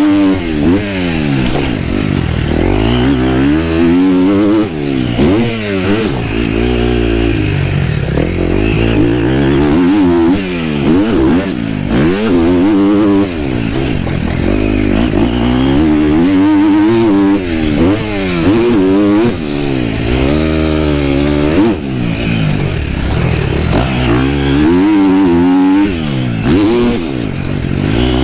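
Motocross bike engine revving up and dropping off again and again as it is ridden hard around a dirt track, throttle opening and closing many times, heard from on board the bike.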